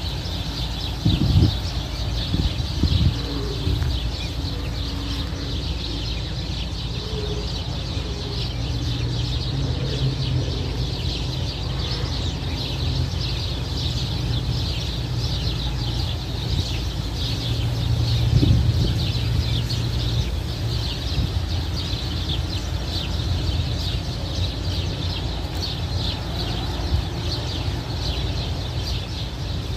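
Many small birds chirping and chattering steadily, over a low rumble of wind on the microphone with a few stronger gusts.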